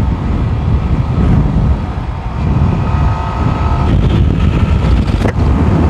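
Yamaha R15 V4's 155 cc single-cylinder engine running at road speed, speeding up from about 87 to 98 km/h, under heavy wind rumble on the microphone. A short knock comes about five seconds in.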